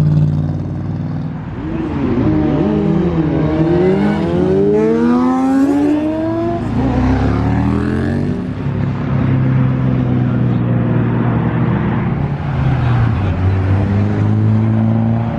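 Sports car engines: a steady low engine note, then a car accelerating hard about two seconds in, its engine pitch climbing repeatedly through the gears until about eight seconds in, before settling back to a steady engine note.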